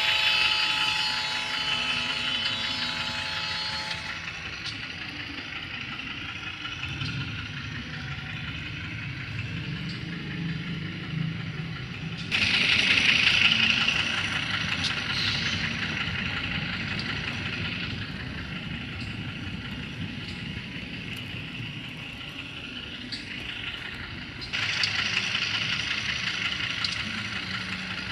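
Sound decoder of an HO-scale CC206 diesel locomotive model playing its engine running steadily. A pitched tone cuts off about four seconds in. A hiss starts suddenly about twelve seconds in and again near the end, fading each time.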